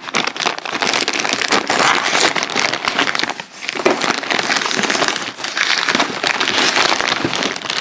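Black plastic shipping mailer bag crinkling and rustling as hands pull it open around a shoebox, with a brief lull about three and a half seconds in.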